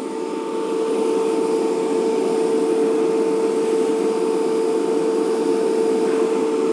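Brand-new electric vehicle winch running, its motor giving a loud steady whine at one unchanging pitch.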